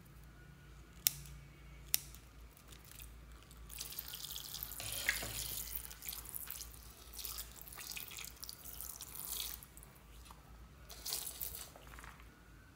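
Scissors snipping twice into a soft squishy toy, then the toy squeezed by hand so its liquid filling squelches and drips out in irregular wet spurts.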